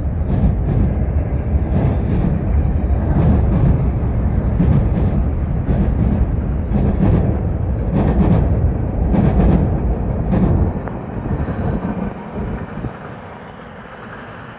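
CN freight train's cars rolling past, a steady rumble with sharp wheel clacks, often in close pairs, as the wheels cross rail joints. About ten and a half seconds in the clacks stop and the sound fades as the end of the train goes by.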